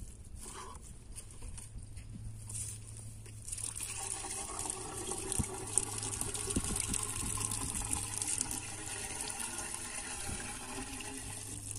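Water glugging out of a plastic jerrycan as it is poured into a diesel water pump's casing to prime it. It starts about three and a half seconds in and goes on until near the end.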